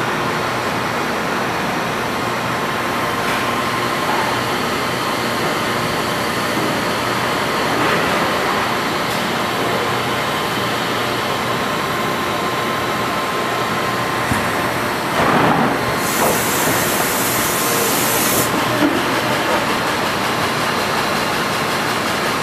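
Industrial machinery running with a steady mechanical noise and a faint steady whine. About sixteen seconds in, a burst of high hiss lasts roughly two seconds.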